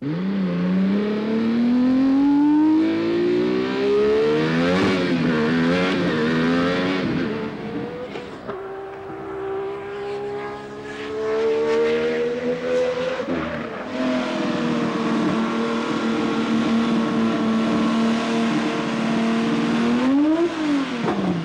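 Formula One racing car engine revving through the gears: the note climbs, drops at a gear change about five seconds in, climbs again with more shifts, then holds a long steady note and gives a short blip up and down near the end.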